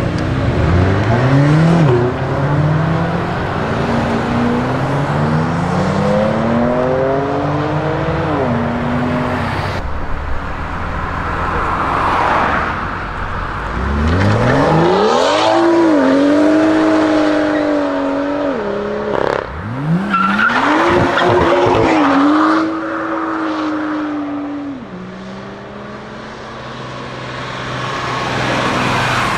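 BMW performance cars' engines and exhausts under hard acceleration: first a rising engine note stepping up through several quick gear changes, then an engine revved up and held at high revs with a few sharp exhaust cracks before it drops away, and another car accelerating off near the end.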